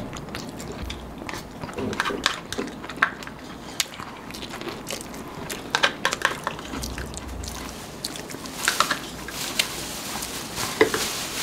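Close-miked eating: chewing, crunching and mouth clicks from people eating KFC fried chicken and fries, with scattered short sharp clicks throughout.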